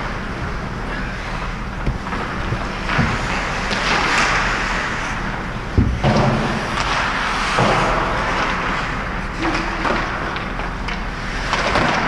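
Ice hockey play: skate blades scraping on the ice in swelling hisses, with a few sharp clacks of sticks and puck, the loudest about six seconds in, over a steady low hum.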